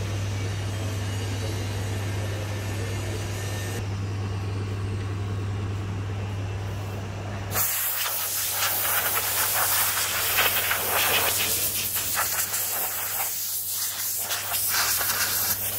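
A steady low machine hum, then from about halfway a loud, uneven hiss of compressed air, with short breaks, as loose sand is blown off the resin-sand anvil mould.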